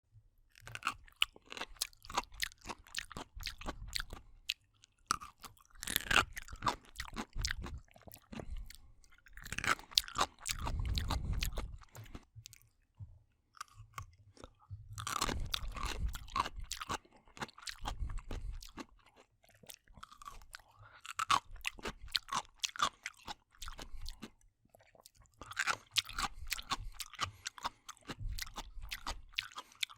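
Close-up chewing of crunchy, wet food: moist crunches and crackles in bouts of several seconds, separated by short pauses.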